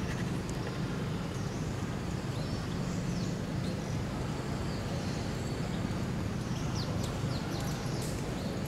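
Steady low outdoor background rumble, with a few short high bird chirps about seven seconds in.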